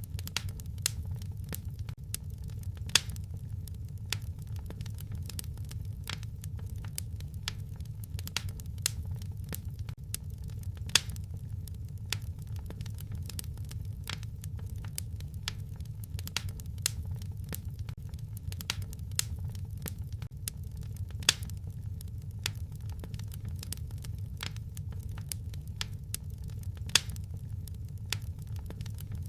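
Wood fire burning in a fireplace: a steady low rumble of the flames with frequent irregular crackles and a few sharper pops.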